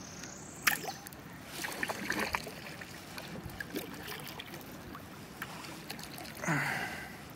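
Water sloshing and dripping around a kayak as it drifts and is paddled, with a sharp knock under a second in and a louder swish of water near the end.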